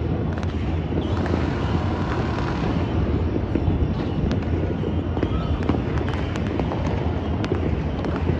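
Many fireworks and firecrackers going off at once: a dense, continuous crackle of bangs and pops over a steady low rumble.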